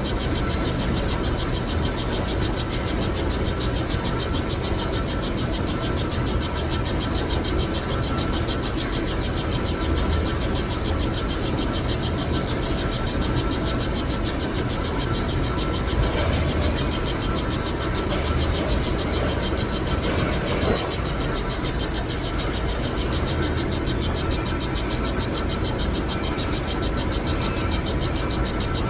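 Metal lathe running steadily, a continuous machine hum with faint steady whining tones. Two brief knocks sound about 16 and 21 seconds in.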